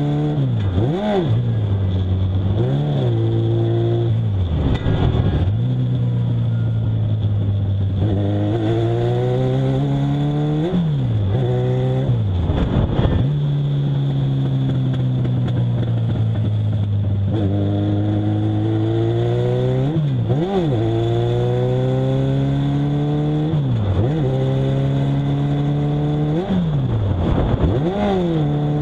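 Legends car's Yamaha four-cylinder motorcycle engine heard from inside the cockpit, pulling under load with the revs climbing steadily, broken about eight times by quick sharp drops in pitch that recover within a second as gears change. A steady high whine runs underneath.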